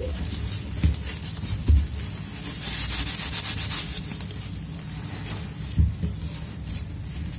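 Gloved hands rubbing and shifting thick foam sponge slabs against each other and the stainless steel sink, a steady scratchy rubbing. It turns into a quicker, denser scrape from about two and a half to four seconds in, with two dull thumps as slabs are set down.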